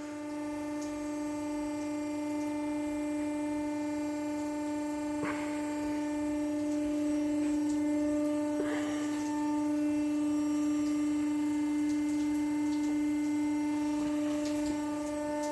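Carpathian SMFA 100 band sawmill's electric drive running idle, not cutting, with a steady hum. Two faint knocks come about five and nine seconds in.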